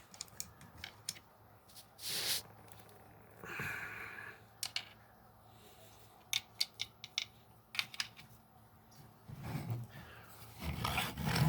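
Plastic Stridor toy-horse parts and reins being fitted on by hand: scattered small sharp clicks in clusters, with a couple of short rustles and low handling rumble near the end.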